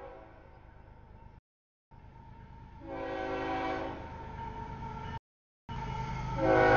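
A CSX freight locomotive's air horn sounds for the grade crossing as the train approaches. There is one blast about three seconds in and a louder one near the end. The audio cuts out completely twice for half a second.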